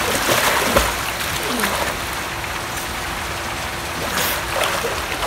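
Swimming-pool water splashing and sloshing as a person thrashes about and swims.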